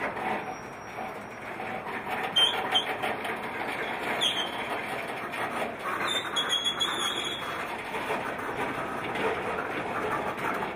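Covered hopper freight cars rolling slowly along the rails with a steady rumble and clatter of steel wheels. Brief high squeals come from the wheels about two and four seconds in, and a longer one just past halfway.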